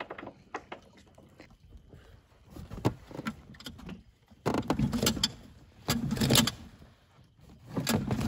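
Handling noises on a small inflatable boat beside a dock: light knocks and clicks, then three loud noisy bursts about a second apart in the second half, each under a second long.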